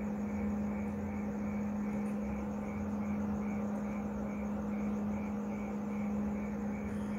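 Steady electrical hum with a whirring drone from a switched-on power amplifier, with a faint light ticking about three times a second.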